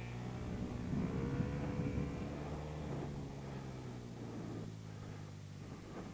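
Motorcycle engine heard from onboard, pulling up in pitch along a straight from about a second in, then easing off as the bike enters a corner.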